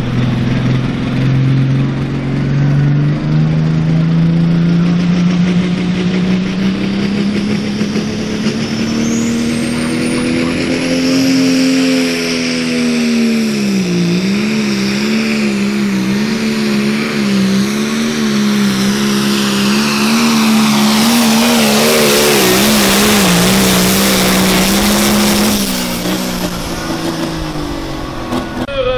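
John Deere Pro Farm pulling tractor's diesel engine at full power through a pull: the revs climb over the first ten seconds with a high whistle rising above them, then the engine labours under the sled's load, its pitch wavering as the front wheels bounce. A loud hissing noise rises over it in the last seconds of the pull, and the engine drops off near the end.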